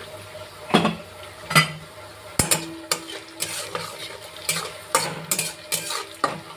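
A spatula scraping and knocking against a pan as onions are stirred while they fry to a brown colour, with a sizzle underneath. The strokes come at an uneven pace, roughly one or two a second, with one sharp knock a little before halfway.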